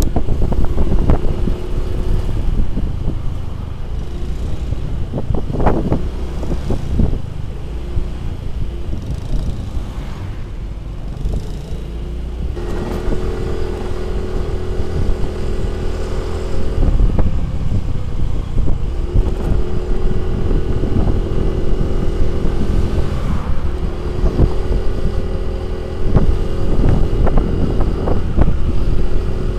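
Motor scooter being ridden, its engine running under heavy wind rumble on the microphone. From about halfway, the engine settles into a steady drone in stretches of a few seconds, dropping away briefly between them.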